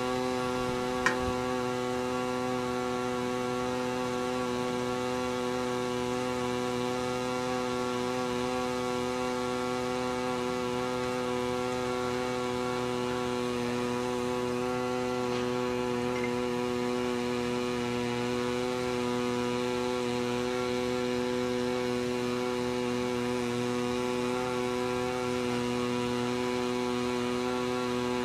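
Steady electrical mains buzz: a low hum with many evenly spaced overtones that never changes, with a single click about a second in.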